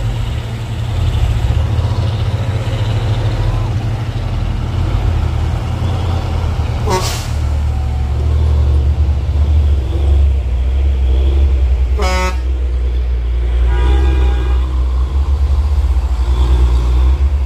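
Heavy trucks on a hill road: a low steady engine rumble, with short horn toots about seven and twelve seconds in and a longer toot around fourteen seconds.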